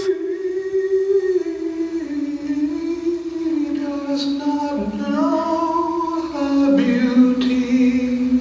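A single voice singing a slow, unaccompanied melody in long held notes that step down in pitch.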